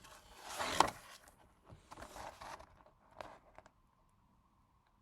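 Pages of a large photo book being turned and handled: paper rustling and scraping, with a sharp click about a second in and another small one past the middle.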